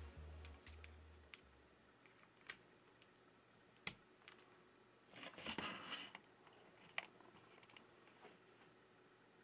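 Faint handling of a charging cable and USB power meter as they are plugged into an opened iPad: a few sharp plastic clicks, the loudest a little under four seconds in and another at about seven seconds, with about a second of rustling between them. Background music fades out at the start.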